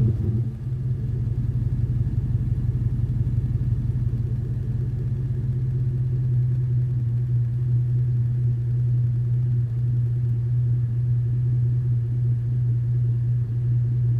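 V8 exhaust through a Hooker Aero Chamber muffler, settling out of a rev in the first half second and then idling steadily with a deep, mellow tone.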